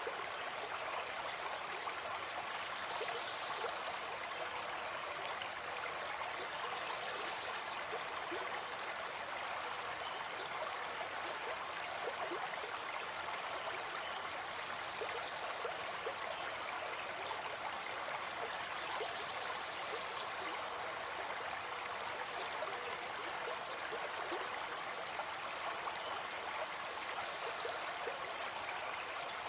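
A shallow stream running over stones, a steady rushing with small splashes and gurgles throughout.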